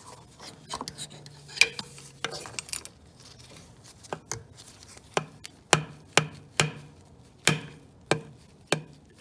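Metal hand tools clicking and knocking against the power steering tube and its clamp as they are worked loose: scattered clicks at first, then a run of sharp clicks about two a second through the second half.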